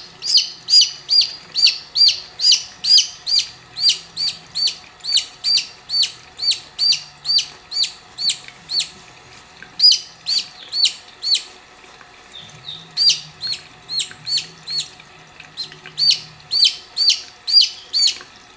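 A baby chick peeping loudly over and over, about three peeps a second, with a short break a little past the middle: the distress peeps of a chick being held and handled. A faucet runs faintly underneath.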